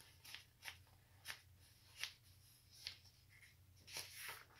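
Faint rustling and soft clicks of a paperback picture book being handled and turned over, a few separate small sounds spread out with a brief longer rustle near the end, over a low steady hum.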